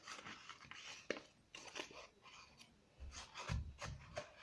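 Faint rustling and handling of paper, with a few light clicks and a dull low thump about three and a half seconds in.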